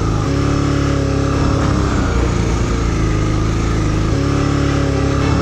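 Honda Transalp 650's V-twin engine running at fairly steady, raised revs as the bike is pushed through deep sand.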